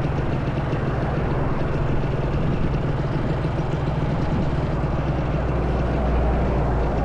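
Honda Dash 125's single-cylinder two-stroke engine running steadily under way, with a continuous rush of wind and road noise over it.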